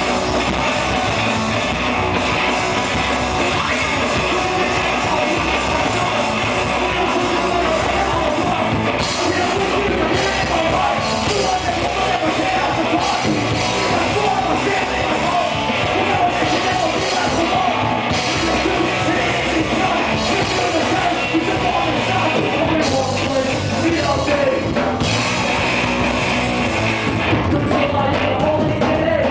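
Live punk rock band playing: electric guitar and drum kit at full volume, with a singer shouting into the microphone.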